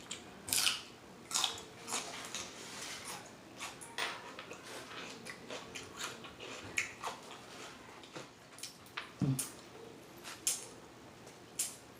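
Close-miked mouth eating sounds: chewing with irregular wet smacking clicks. A brief low voice-like sound about nine seconds in.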